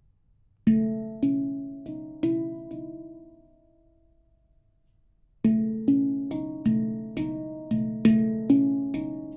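A C# Shahmaran 15 handpan of nitrided steel, tuned to a C# minor (Kurd) scale, played by hand. Four notes are struck about a second in and ring out and fade. After a pause, a steady run of notes starts about halfway through, roughly two a second.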